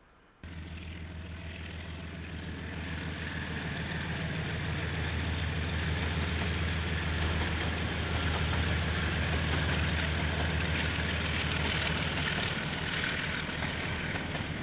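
Two KiwiRail diesel locomotives hauling a container freight train past: a steady low engine drone with a hiss of running noise above it, cutting in suddenly about half a second in and swelling as the train goes by.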